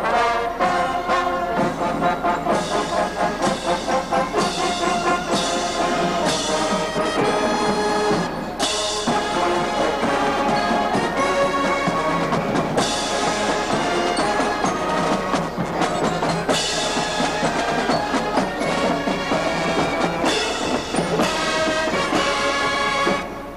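Marching band playing on the march: a full brass section of trumpets, trombones and saxophones over drums beating time.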